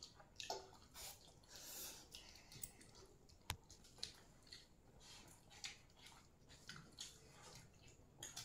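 Near silence with faint soft squelches and clicks of hands mixing and eating watered rice (pakhala) from steel bowls, and one sharp click about three and a half seconds in.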